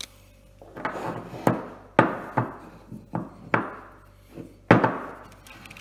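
Steel rifle trigger parts and a screwdriver knocking against a plastic gunsmithing bench block as they are positioned: several irregular clunks, the loudest about two seconds in and near the end.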